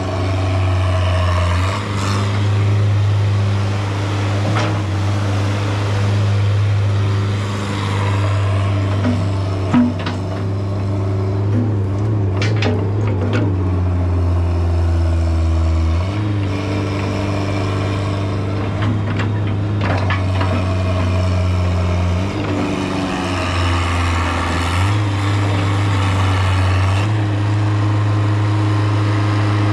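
2005 Terex HR16 mini excavator's engine running steadily while the boom and bucket work dirt, its pitch stepping down and back up several times as the hydraulics take and release load. A sharp knock about ten seconds in and a few clanks shortly after come from the bucket and linkage.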